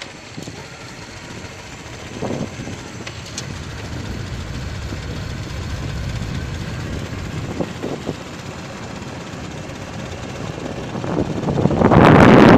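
Vehicle driving on a hilly road: steady low engine and road rumble that slowly builds, with a few short knocks. Near the end a loud rush of wind buffets the microphone.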